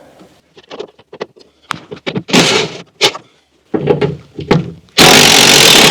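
Tools and metal parts clicking and clanking while the parking brake's nuts and bolts are undone under a dashboard, with short scraping bursts, then a loud harsh scraping or rattling noise about five seconds in that lasts a second and a half.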